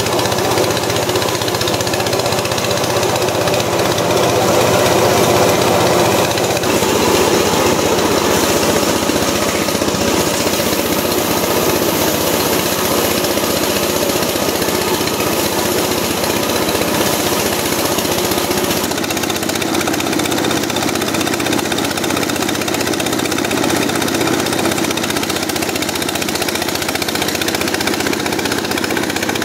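Motorized rice thresher running loudly and steadily, its spinning drum stripping grain from bundles of rice stalks as they are fed in.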